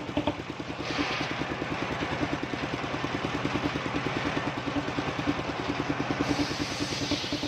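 Engine-driven circular sawmill running with a steady pulsing engine beat; about a second in, the blade starts cutting through a kenanga log with a hissing rasp that lasts about five seconds, then comes back briefly near the end.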